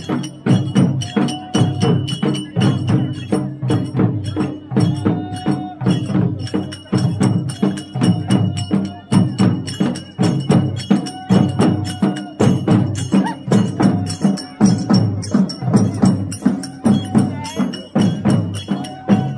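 Music with a steady percussion beat and a short melodic figure that comes back every few seconds.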